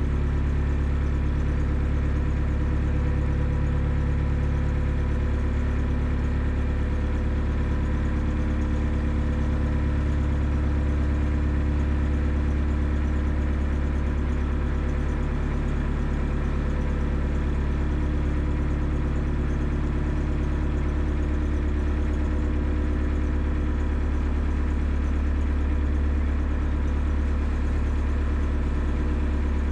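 Narrowboat's diesel engine running steadily at low cruising revs, a deep even hum that holds the same pitch throughout.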